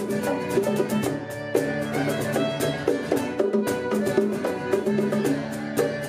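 Live fiddle and acoustic guitar playing a traditional-style tune: the fiddle carries a quick run of melody over a steady strummed guitar rhythm.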